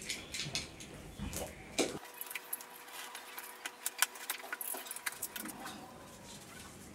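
Scattered sharp clicks and scrapes of a cardboard box being slit open with a box cutter and its packaging handled, busiest in the first few seconds and thinning out near the end.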